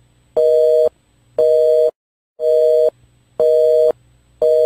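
Telephone busy signal: a two-tone beep repeating about once a second, five beeps. It is the sign that the line is dead after the other end has hung up.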